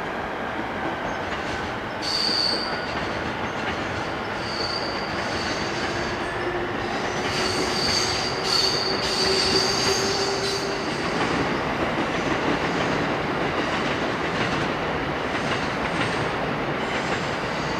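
A train rolling over sharply curved track, its wheels squealing. From about two seconds in, high thin squeals come and go for several seconds over a steady rumble of wheels on rail.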